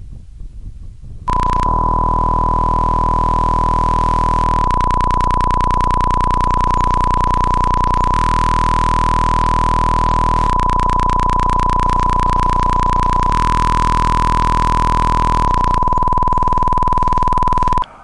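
A loud, steady electronic beep tone, one unwavering high pitch, starting about a second in and cutting off abruptly near the end. Underneath it runs a low buzz that shifts in texture every few seconds.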